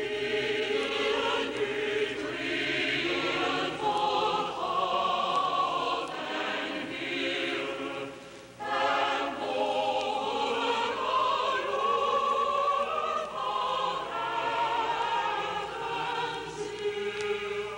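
Choral music: a choir singing long, wavering held notes, with a short break about eight and a half seconds in before the singing resumes.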